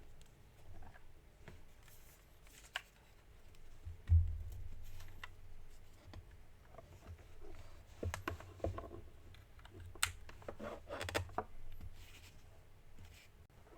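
Typing on a KMG TKL mechanical keyboard with lubed and filmed Cherry MX Hyperglide Black linear switches on an aluminum plate. Keystrokes come irregularly, bunching into quicker runs in the middle and later part. There is a low thump about four seconds in.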